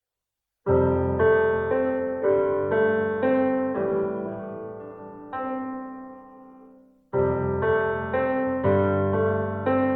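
Slow, gentle solo piano melody played on a Casio WK-110 electronic keyboard, single notes about two a second over sustained chords. It starts about a second in, dies away near the middle, then a new phrase begins.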